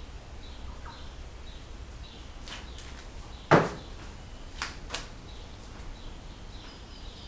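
Workshop handling noises during an engine rebuild: one sharp knock about halfway through and a few lighter clicks, over a low steady hum and faint bird chirps.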